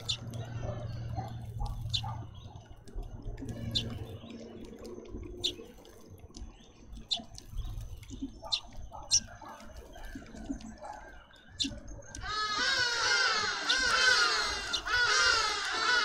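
Garden birds at a seed feeder: scattered sharp, high chirps, then about twelve seconds in a loud burst of fast, dense twittering chatter.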